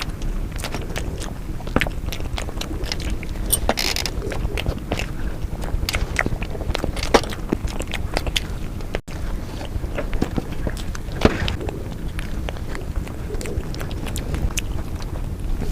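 Close-miked eating: biting and chewing with many small wet mouth clicks and smacks, a few sharper ones standing out.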